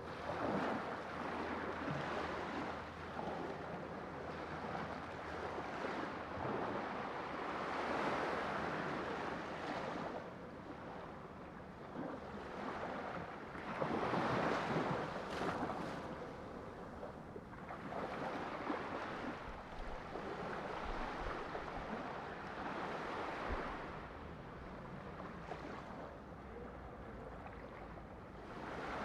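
Sea waves washing onto a shore, a steady rush that swells and falls back every several seconds.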